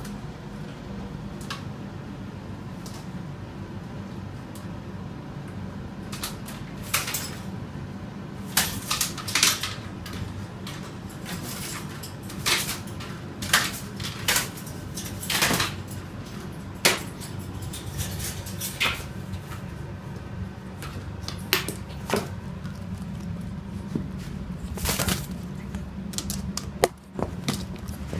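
Scattered sharp clicks and clattering knocks over a steady room hum, coming singly and in quick clusters from about six seconds in: a sulphur-crested cockatoo scrambling and flapping on wire cages and knocking about its plastic lid fetch toy.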